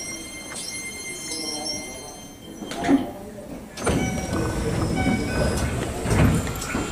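Keisei 3000-series commuter train standing at a platform while someone boards through its sliding doors: a sharp knock about three seconds in, then louder noise from about four seconds with a heavy thud near the end.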